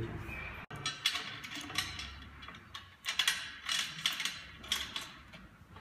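Aluminium mounting rail clicking and scraping against a metal L-foot bracket as it is handled and fitted on, in a run of irregular short metallic clicks.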